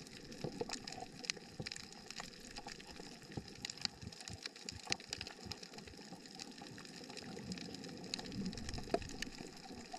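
Underwater coral-reef ambience: a steady crackle of many irregular sharp clicks over a low water hiss, the crackle typical of snapping shrimp on a reef.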